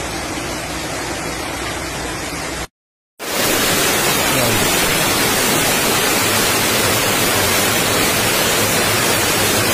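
Floodwater pouring down a flight of stairs: a loud, steady rush of cascading water that starts abruptly about three seconds in, after a half-second of silence. Before that comes the quieter, steady wash of floodwater running through a street.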